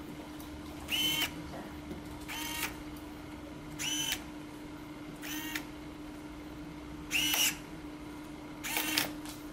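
The ParaGripper's finger-drive electric motors whine in six short bursts, each under half a second, about every one and a half seconds, as the fingers move. A steady hum runs underneath.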